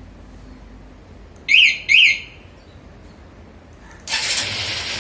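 Motorcycle anti-theft alarm siren giving two short, loud rising chirps in answer to its remote, then, about four seconds in, the Honda Unicorn 150's single-cylinder engine starting.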